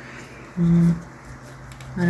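A person's short hummed 'hmm', one steady voiced tone lasting about a third of a second, made while thinking over a question; otherwise quiet room tone.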